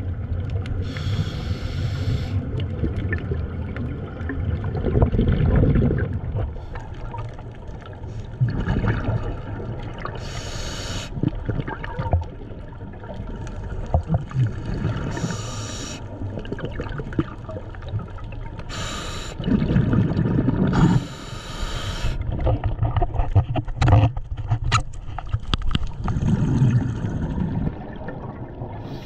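Water gurgling and sloshing over a steady low rumble, broken by about half a dozen short bursts of hiss.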